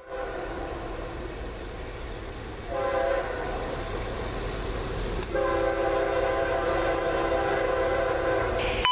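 Air horn of an approaching CSX freight train's lead locomotive, a GE C40-8W, sounding over the low rumble of the train: a soft note at first, louder from about three seconds in, then a fuller, longer blast from a little after five seconds until just before the end.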